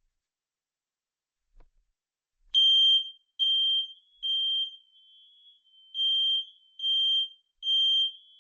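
Smoke detector sounding its test alarm: a loud, high-pitched beep in the temporal-three pattern, three short beeps, a pause, then three more. The beeping starts a couple of seconds in, just after a faint click.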